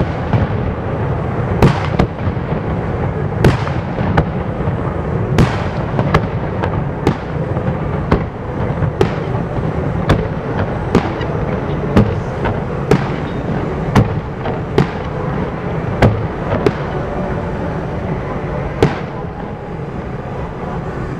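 Aerial fireworks shells bursting one after another, sharp bangs about once a second over a continuous din, the last bang coming shortly before the end.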